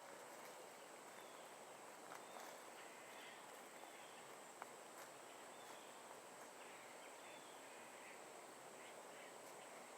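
Near silence: quiet outdoor background with a steady high-pitched whine, a few faint chirps and a couple of light clicks.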